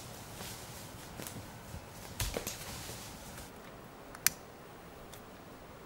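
Footsteps and rustling in dry leaf litter, with a few scattered crackles, then a single sharp click a little past four seconds, the loudest sound, as a lighter is struck to light a small twig fire.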